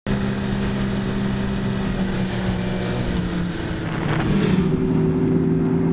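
Snowmobile engines running steadily along a trail, with a change in engine note about four seconds in.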